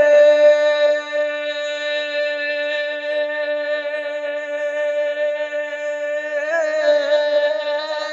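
Naat reciter's unaccompanied voice holding one long sung note, with a brief wavering turn about six and a half seconds in.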